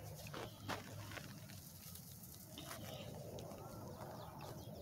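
Faint outdoor ambience with a few light clicks and rustles in the first second or so, then a low, even background.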